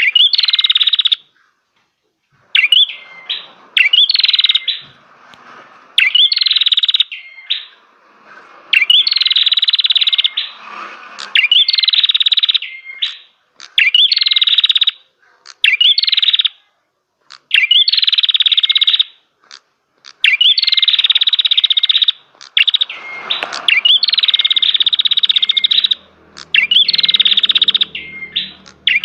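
A cimblek (red-headed prenjak) singing loud, rapid trilled phrases of about one to two seconds each, repeated over and over with short pauses between them.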